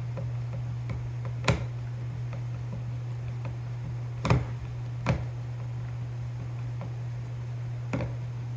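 Four sharp clicks and knocks from small parts and tools being handled on a workbench, over a steady low hum.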